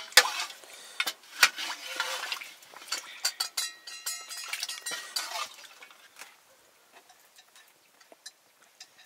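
Metal pots and utensils clinking and clattering. The clatter dies away about five and a half seconds in, leaving a few faint ticks.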